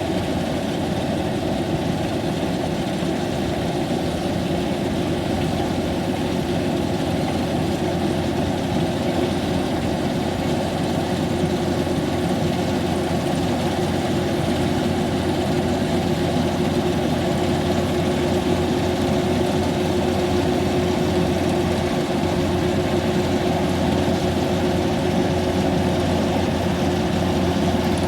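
Kubota rice harvester's engine running steadily, a continuous mechanical drone with a steady held tone over it.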